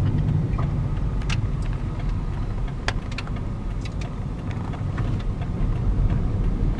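Car driving, heard from inside the cabin: a steady low engine and road rumble, with a few short sharp clicks now and then.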